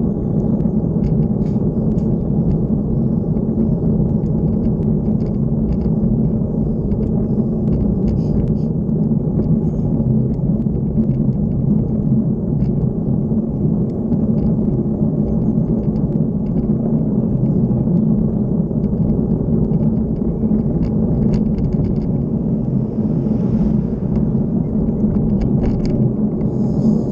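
Motorcycle engine running at a steady cruising speed, mixed with wind rumble on the microphone.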